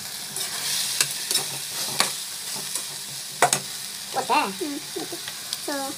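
Steel spoon stirring a brinjal masala frying in a kadai over a steady sizzle, clinking and scraping against the pan about once a second.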